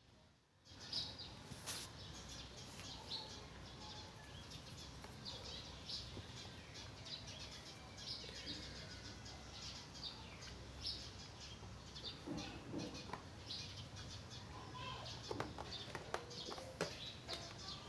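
Faint, scattered bird chirps, short and high, over a low background hum, with a few sharper knocks and splashes in the last third as a young macaque clambers in and out of a plastic basin of water.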